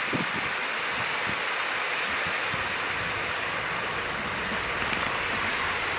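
Steady rushing hiss of shallow flowing water, even throughout, with a few faint taps in the first second or two.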